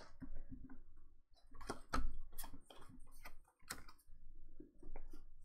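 Pokémon trading cards handled and flipped through by hand: a run of irregular light clicks and snaps as the cards slide and tap against each other.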